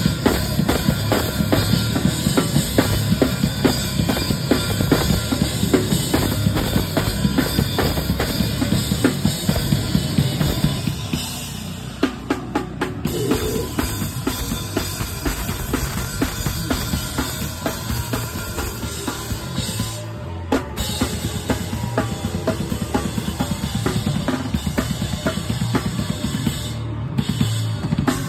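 Live band playing loud and fast on drum kit, electric guitar and bass guitar, with dense, rapid drum hits; the volume dips briefly about eleven seconds in, then picks back up.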